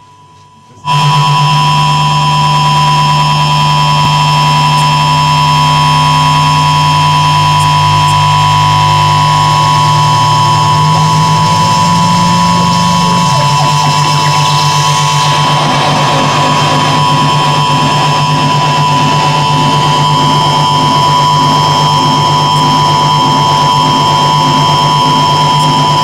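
Live experimental noise music: a loud, sustained amplified drone that cuts in abruptly about a second in, a low hum under a steady high tone. The low note steps up briefly around the middle, then a noisy swell rises over the drone.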